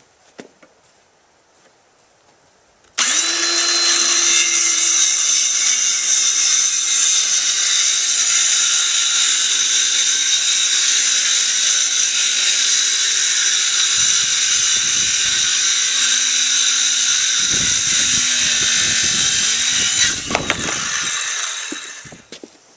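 Electric power tool running steadily under load, starting abruptly about three seconds in and dying away near the end.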